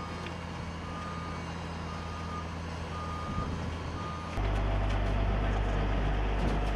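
A bulldozer's reversing alarm beeping about once a second over its engine running. About four seconds in the beeps stop and a louder, deeper engine sound takes over.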